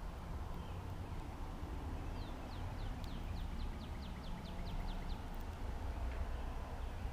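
A small songbird sings a series of about a dozen quick, high, down-slurred notes, about four a second, lasting some three seconds. A steady low rumble runs beneath.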